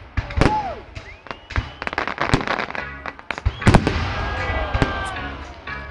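Fireworks going off: a rapid string of sharp bangs and crackles, with a falling whistle and then a rising whistle in the first second or so. The loudest cluster of bangs comes a little past the middle.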